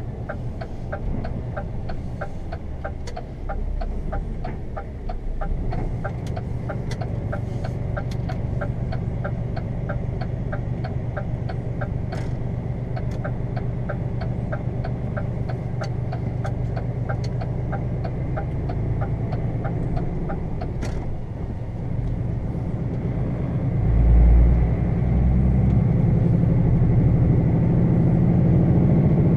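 DAF CF 400 truck's diesel engine running under way, heard inside the cab, with the turn-signal indicator clicking steadily at about three clicks a second through the roundabout until it stops about two-thirds of the way in. Near the end the engine grows louder as the truck accelerates on the straight.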